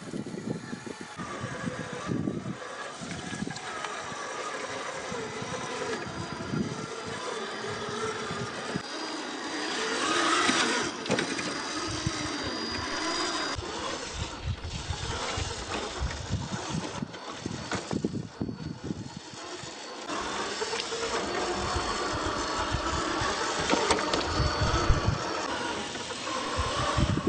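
Radio-controlled Willys jeep model driving off-road, its motor and drivetrain running steadily with a level that keeps rising and falling, louder about ten seconds in and again for the last third.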